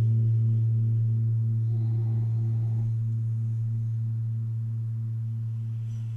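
A low ringing tone from a sound-bath instrument such as a singing bowl or gong, slowly dying away. Its overtones waver in a steady beat about three times a second.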